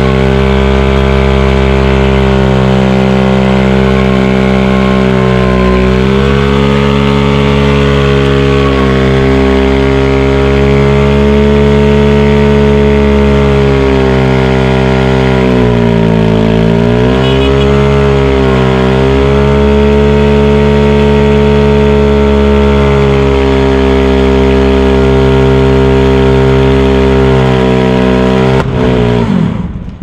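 Honda Wave 125i's single-cylinder four-stroke engine held at high revs in a stationary burnout, the rear Shinko SR898 road tyre spinning on asphalt. The revs dip and pick up again around the middle, then drop away suddenly near the end.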